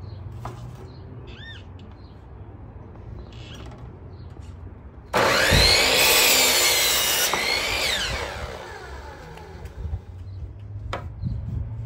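Electric compound miter saw starting suddenly about five seconds in and cutting through a wooden board, loud for about two seconds, then the blade spinning down with a falling whine.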